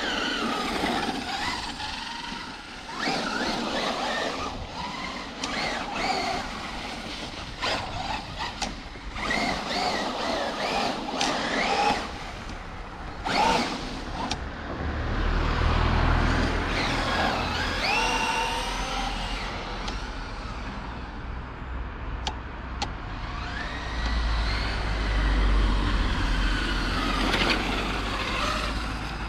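Traxxas Unlimited Desert Racer electric RC truck driving, its motor whine repeatedly rising and falling in pitch as it speeds up and slows down. A low rumble comes in around the middle and again near the end.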